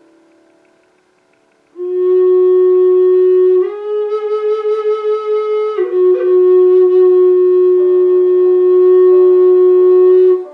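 Native American-style drone flute playing long held notes over a quiet violin and cello backing track. The flute comes in about two seconds in with a sustained note, steps up a tone and then back down, and holds the lower note until it stops just before the end.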